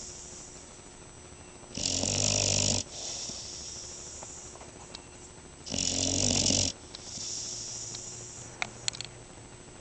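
Dog snoring in deep sleep: two loud, rumbling snores about four seconds apart, each lasting about a second and followed by a softer, longer breath.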